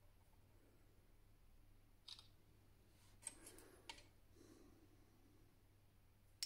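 Near silence: room tone with a few faint, short clicks about two, three and four seconds in.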